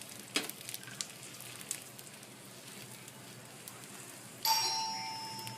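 Oil sizzling and crackling around pav bread frying on a hot pan, with scattered pops. About four and a half seconds in, a sudden metallic clang rings and fades over about a second.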